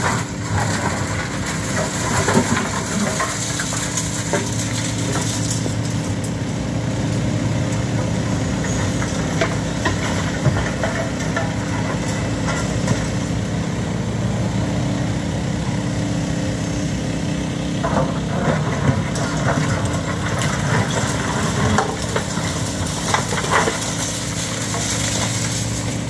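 Hitachi Zaxis 130 excavator's diesel engine running steadily as it works, with scattered knocks, scrapes and clatters of broken concrete rubble in its bucket.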